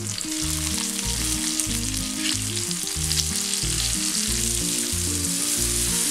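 Marinated sole fish pieces sizzling in hot oil on a flat iron tawa, partway through shallow frying, as they are turned over with a spatula. Beneath the sizzle run low, steady tones that change in steps about twice a second.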